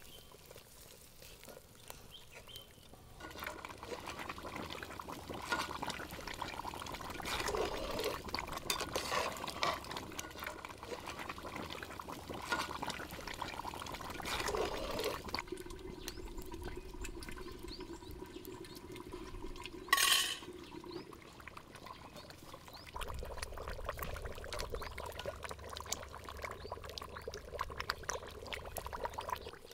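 Water pouring and splashing in irregular surges, with a brief sharp noise about two-thirds of the way through.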